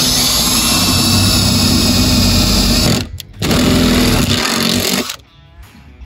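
Electric hand drill running a 1/2-inch twist bit through the wooden floor, opening a pilot hole up to bolt size over the steel cross channel. It runs steadily, stops briefly about three seconds in, runs again, and stops about five seconds in.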